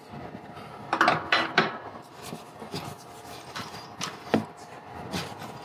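Scattered metal handling clicks, knocks and scrapes: a pipe wrench laid on the galvanized span pipe, and the rusty steel gooseneck sprinkler drop being unscrewed by hand from its threaded coupling. The loudest knocks come in a cluster about a second in, with sharper single clicks later.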